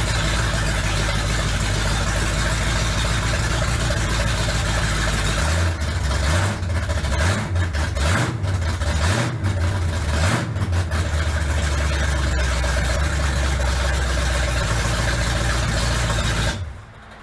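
Big-block 454 V8 in a 1965 Chevrolet C10 pickup running at a steady idle. Between about 5 and 11 seconds in, the throttle is blipped several times, then it settles back to idle. The sound stops abruptly near the end.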